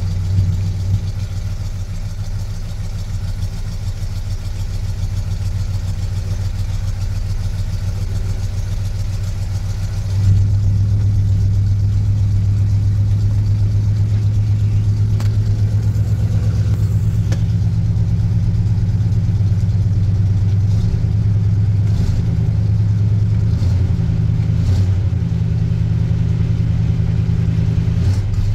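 1986 Chevrolet K10 pickup's gasoline engine idling steadily, heard from inside the cab, in the first minute after a cold start in about 4 °F weather with the truck having sat for a month and a half. The idle gets louder about ten seconds in and stays there.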